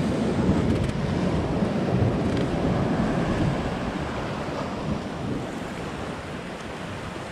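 Sea surf washing over shoreline rocks, mixed with wind buffeting the microphone; a steady rushing that slowly grows quieter toward the end.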